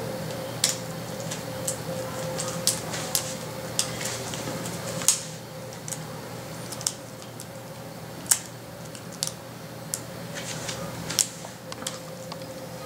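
Irregular light clicks and taps of small plastic and metal laptop parts being handled while a replacement LCD panel is fitted into the laptop's screen lid, over a faint steady hum.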